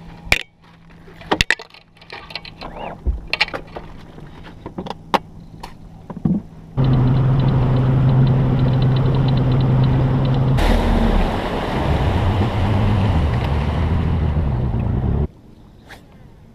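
Bass boat's outboard motor running, a steady low hum with a rushing hiss over it. It starts abruptly about seven seconds in, the hiss grows about four seconds later, and it cuts off abruptly about eight seconds after it started. Before it, clicks and clatter of fishing gear being handled on the deck.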